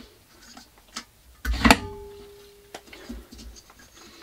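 Metal parts of a belt grinder being handled: a light click, then a knock that sets a metal part ringing with a steady tone for about a second until it is cut off with a click, followed by a few soft knocks.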